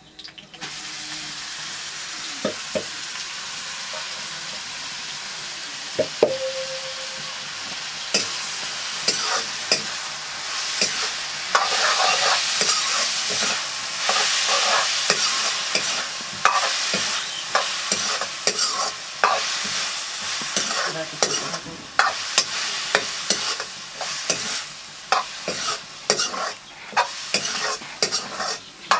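Mushrooms frying in hot oil in a metal wok: a steady sizzle that starts just as they are tipped into the pan. From about eight seconds in, a metal spatula scrapes and knocks against the wok again and again as they are stirred, with a single short metallic ring about six seconds in.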